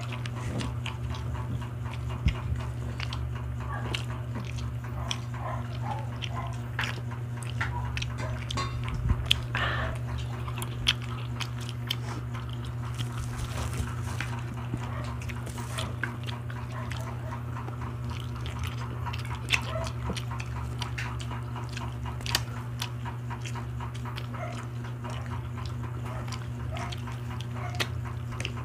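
Close-up eating sounds: chewing and lip-smacking on grilled barbecue skewers, with many scattered short clicks, over a steady low hum.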